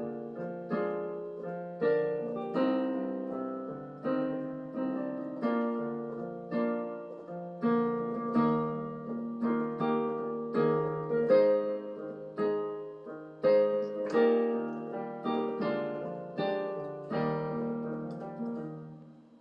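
Piano playing a slow hymn tune in chords, each chord struck and left to ring; the last chord dies away near the end.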